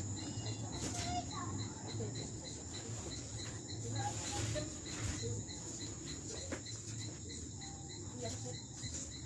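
Crickets chirping in an even pulse of about four chirps a second, over a low hum.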